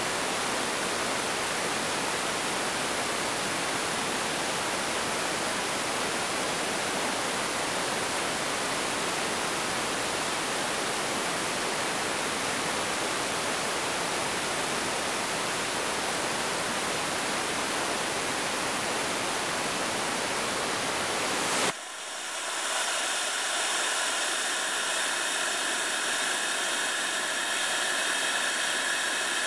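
BonNova Lauryad Level I radiatively cooled graphite rocket engine firing, a steady rushing exhaust noise, cutting off abruptly about 22 seconds in at the end of its full-duration 101-second burn. After the cutoff a thinner hiss with several steady whistling tones follows.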